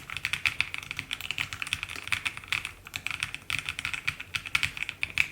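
Fast, continuous typing on the EPOMAKER x LEOBOG K81 mechanical keyboard: a steady rapid stream of key clicks.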